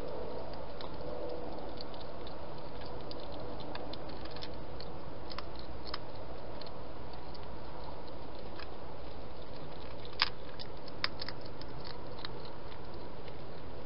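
A wild hedgehog eating at a food bowl: scattered small crisp clicks of chewing and crunching, with two louder clicks about ten and eleven seconds in, over a steady hiss.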